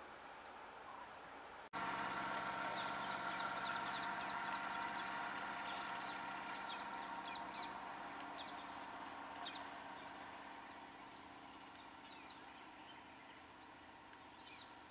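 Many birds calling in quick, falling chirps over a steady engine hum that slowly fades as a small truck drives away. The sound cuts in abruptly a little under two seconds in.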